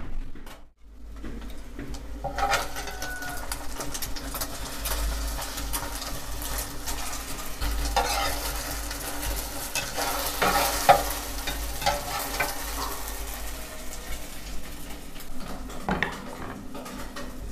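Egg omelette frying in hot oil in a cazuela: a steady sizzle full of small spattering pops, with a metal spatula scraping and turning it in the pot.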